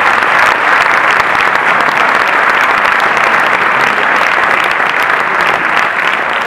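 Audience applauding: many hands clapping in a dense, steady wash that eases slightly near the end.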